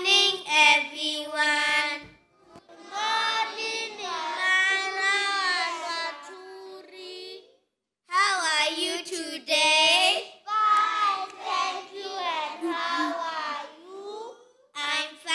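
Young children singing unaccompanied, in sung phrases separated by short pauses.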